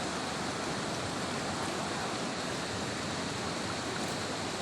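Floodwater rushing past in a swollen current, a steady, even rush of water.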